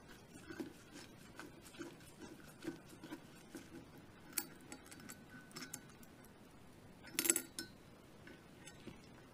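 Faint small metal ticks and clicks of a screwdriver turning the right safety screw in a Desert Eagle Mark XIX slide, with a brief cluster of metallic clinks about seven seconds in.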